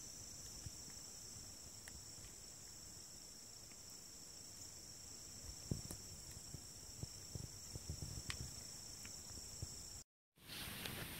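A chorus of insects trilling steadily and high-pitched, with a few faint low taps and knocks in the second half.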